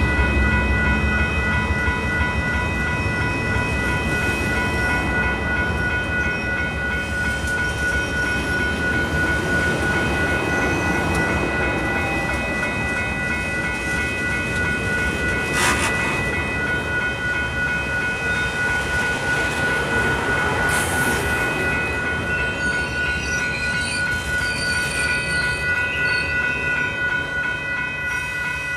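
Amtrak Superliner passenger cars rolling past on jointed track, a steady rumble and clatter of wheels on rail that slowly fades as the last car goes by, with one sharp clank about halfway through. A grade-crossing bell rings on throughout as a steady, rapidly repeating high tone.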